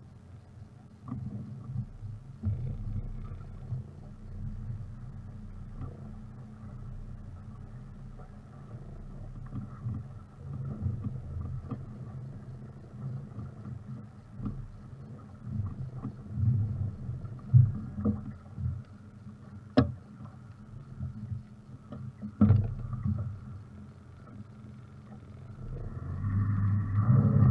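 Mercury 150 Pro XS outboard motor running at idle as the boat creeps forward, with water lapping against the aluminium hull and a few sharp knocks. The sound swells near the end.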